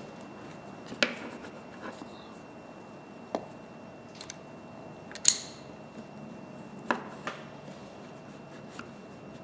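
Scattered light clicks and clinks of metal hand tools being handled, picked up and set down, irregular and a second or so apart, the sharpest clink about halfway through. A faint steady high-pitched hum runs underneath.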